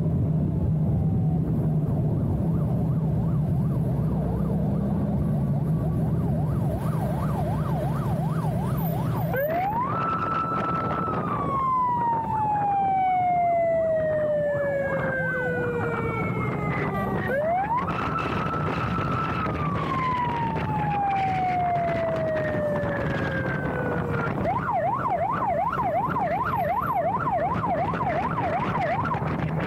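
Escort motorcycle siren over the engine of a Kawasaki GTR 1400. For about the first nine seconds the engine runs under a faint fast yelp. Then come two long wails, each rising quickly, holding and falling slowly. A fast yelp follows and switches back into a rising wail at the end.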